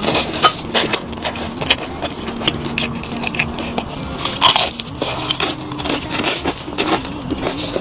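Close-miked eating: chewing and crunching food, with irregular sharp clicks and wet mouth sounds. A faint steady low tone runs underneath.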